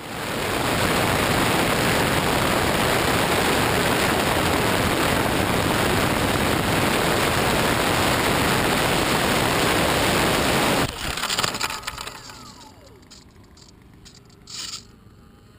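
Steady loud rush of air and ducted fans, heard from a camera mounted on a twin-engine RC jet in flight. It cuts off suddenly about eleven seconds in as the jet crashes into grass, leaving faint rustling and a faint falling whine.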